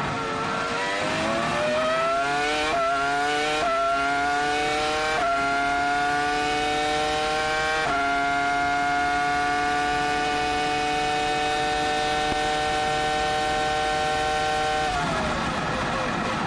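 Onboard sound of a 2004 Williams-BMW Formula One car's 3.0-litre V10 pulling hard out of a corner. The engine revs rise with four quick upshifts, each a sudden drop in pitch. It then holds a high, nearly steady scream at full throttle for about seven seconds, and near the end the revs fall away as the driver lifts off.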